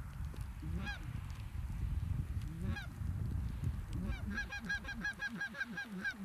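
Geese honking: two single honks, then a rapid run of honks and clucks about five a second, over a low rumble that fades near the end.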